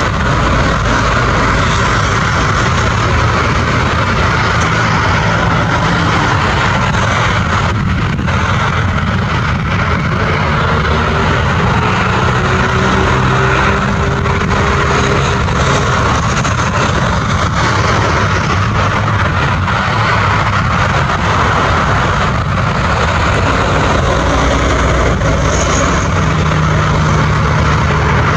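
Boeing 767-300 freighter's twin GE CF6 turbofan engines running at taxi power as the jet taxis, a steady rumbling hiss that holds level throughout.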